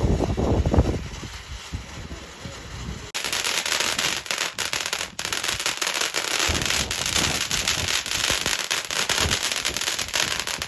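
A firework crackling: about three seconds in, a sudden dense, continuous crackle of rapid pops sets in. Before it there is low, gusty rumbling.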